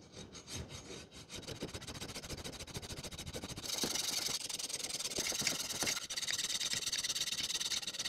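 Hand hacksaw cutting a cast mild steel pipe cap clamped in a vise, with fast back-and-forth strokes. The sawing gets louder and harsher about three and a half seconds in.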